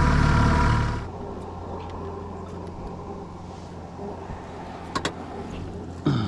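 Boat's outboard motor running steadily, then dropping away sharply about a second in, leaving a faint low hum. Two short knocks come near the end.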